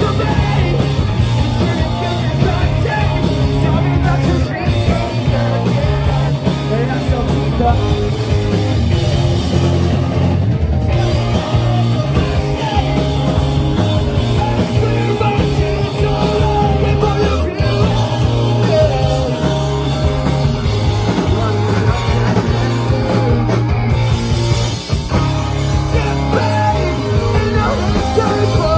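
A live pop-punk band plays loudly. A singer sings and shouts over distorted electric guitars, bass and drums.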